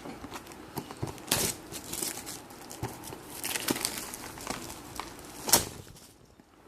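Packaging of a trading-card box being torn open and handled: crinkling and tearing with scattered small clicks, and a sharper snap about five and a half seconds in.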